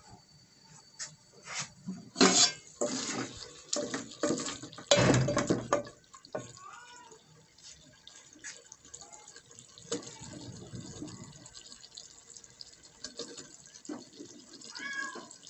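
An aluminium cooking pot being handled: the lid and wooden ladle knock and clatter against it, loudest about five seconds in. Then cut potato chunks go into the curry gravy with small wet plops and splashes.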